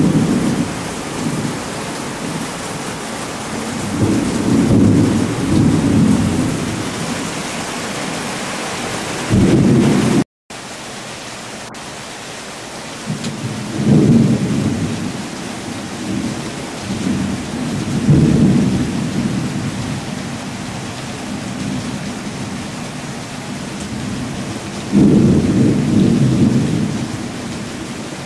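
Steady rain with thunder rumbling again and again, several low rolls that swell and fade. The sound cuts out for a moment about ten seconds in.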